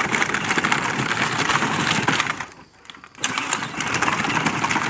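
Ride-on toy ATV driving over gravel, its hard plastic wheels crunching and crackling on the stones. The sound drops away briefly about two and a half seconds in, then starts again.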